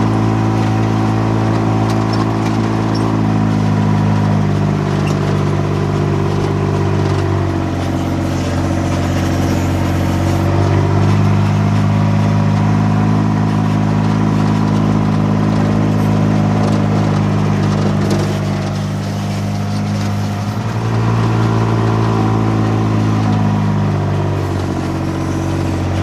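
Kubota X1140 utility vehicle's three-cylinder diesel engine running under way. Its note steps down and back up a few times as the speed changes.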